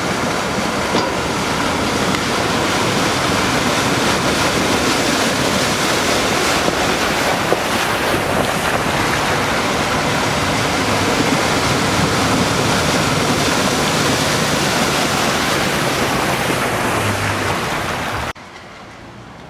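A Toyota Tacoma pickup driving through a shallow creek, its wheels throwing up water in a steady loud rush of splashing. The splashing cuts off suddenly near the end.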